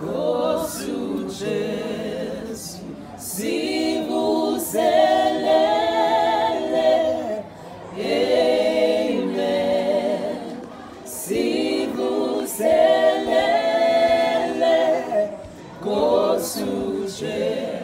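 A small group of people singing together unaccompanied, several voices in harmony, in sung phrases with short breaks between them.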